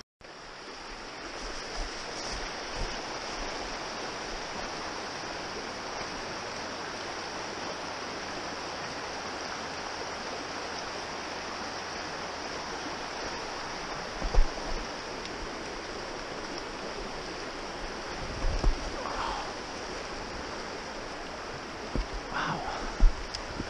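Small woodland brook running steadily, an even rushing of water, with a few short low thumps in the second half.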